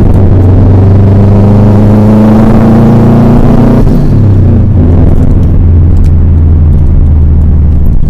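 A 2004 Subaru WRX's turbocharged flat-four engine, heard loud while driving. It holds a steady note, then drops in pitch about four seconds in.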